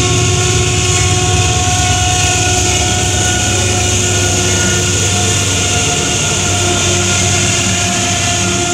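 Freight train with a single diesel locomotive passing, running loud with several steady whining tones over a low rumble. The engine sounds weird, which the watchers put down to a probable mechanical problem.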